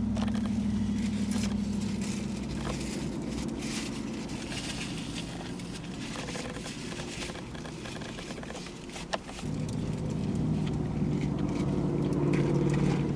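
A steady low hum of a car engine running. The first hum fades out over the first couple of seconds, and a second engine hum comes up about nine and a half seconds in, just after a single sharp click, and grows louder toward the end.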